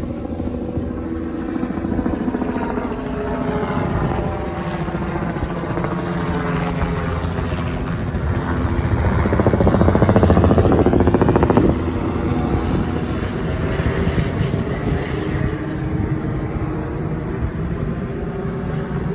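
Police helicopter circling low overhead: steady rotor and engine noise that swells as it passes nearly overhead about halfway through, its pitch sweeping, then drops off abruptly and carries on more quietly.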